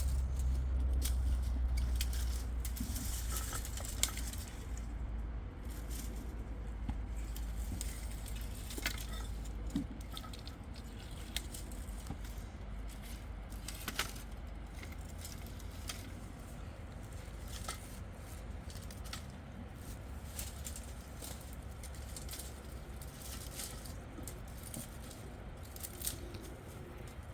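Irregular small clicks and crackles over a low, steady rumble that eases off over the first several seconds.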